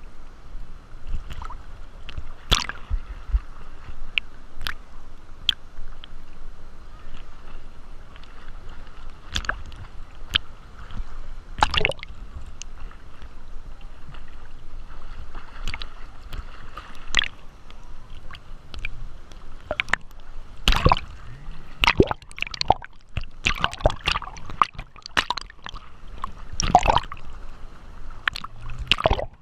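Water sloshing and gurgling, with irregular sharp clicks and knocks scattered throughout, more of them in the second half.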